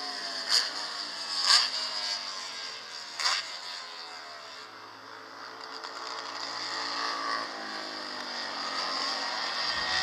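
Race car engine passing on the circuit, its note falling as it goes away, with another engine note rising faintly later on. Three sharp clicks stand out in the first few seconds, the loudest about a second and a half in.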